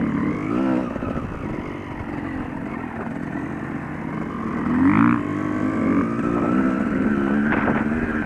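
Yamaha YZ250 two-stroke dirt bike engine revving up and down under riding load. About five seconds in, it climbs and then holds a higher steady pitch.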